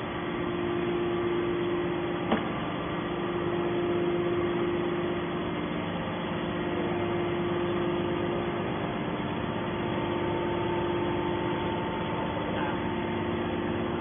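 Hydraulic scrap metal baler's power unit running steadily: a constant motor-and-pump hum with a low droning tone. A single sharp click about two seconds in.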